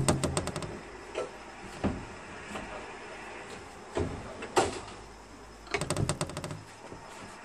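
Ratchet of a hand winch clicking in quick runs as it is cranked, one run at the start and another near the end, with a few separate knocks and clunks between.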